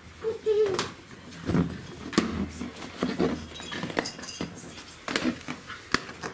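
Czechoslovakian wolfdog puppies vocalising and moving about: a short high whine near the start, then a few louder irregular yelps or grumbles, mixed with several sharp clicks and knocks.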